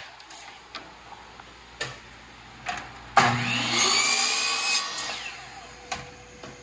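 Power miter saw: a few light knocks as it is handled, then its motor starts suddenly about three seconds in, rising in pitch as the blade spins up. It runs for about two seconds, then winds down with a falling whine.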